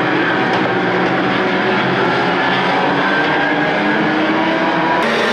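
Engines of a pack of banger racing cars running hard together, many engine notes overlapping at different pitches, with an abrupt change in the sound about five seconds in.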